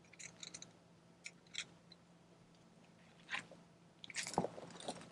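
Handling noise from fitting plastic parts onto an inflatable kayak: scattered light clicks and taps, with a busier flurry of clicking and rubbing about four seconds in.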